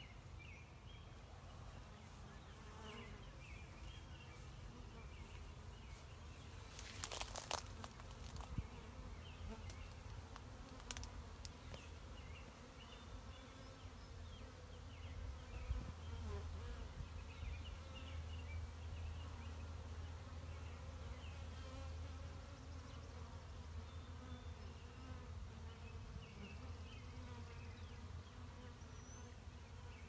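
Faint, steady buzzing of a honey bee swarm clustered on a tree branch, with a few sharp clicks about seven seconds in.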